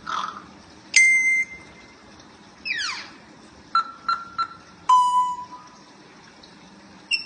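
African grey parrot whistling a string of clean, beep-like notes: a held whistle, a falling whistle, three short quick notes, another held whistle, and a brief chirp at the end.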